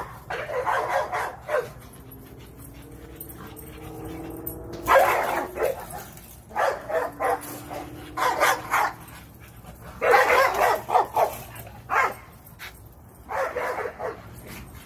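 Two dogs, an American bully and a smaller dog, play-fighting with bursts of barking and yipping every second or two and lower drawn-out vocal sounds in between. It is rough play, not a real fight.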